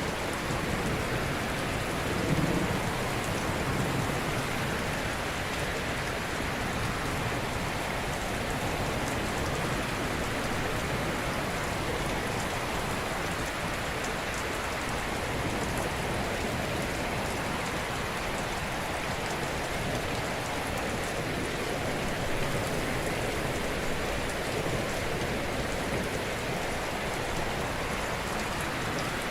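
Ocean surf: a steady wash of waves breaking gently on a shore, an even hiss that swells slightly about two seconds in.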